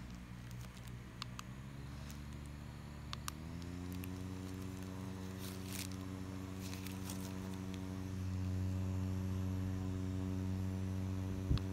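JisuLife handheld fan's small motor and blades running with a steady hum, rising in pitch to a higher speed a few seconds in, then winding down as it is switched off at the end. Light crinkles of a plastic sleeve come and go over it.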